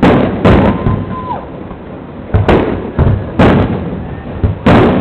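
Fireworks bursting overhead: about five sharp bangs, two close together at the start, then three spread over the last half, each trailing off in a rumbling echo.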